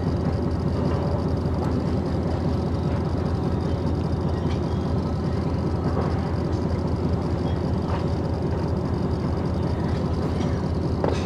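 Truck engine running steadily, with a few faint clicks over it.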